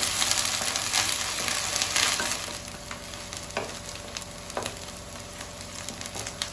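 Chopped onions and ginger paste sizzling in hot oil in a non-stick kadai, stirred and scraped with a wooden spatula. They are being roasted until the paste's raw smell is gone. The sizzle drops lower about two and a half seconds in, and there are a couple of light spatula knocks after that.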